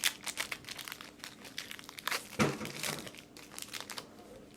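Foil wrapper of a Pokémon Evolving Skies booster pack being torn open and crinkled by hand: a rapid run of crackles, loudest about two and a half seconds in, thinning out near the end.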